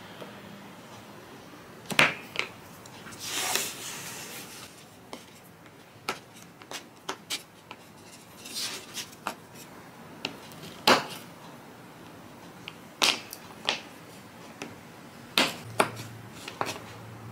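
White chocolate bar being cut into squares with a knife on a wooden cutting board: a dozen or so sharp snaps and knocks as pieces break off and the blade meets the board, with a couple of short scraping sounds between them.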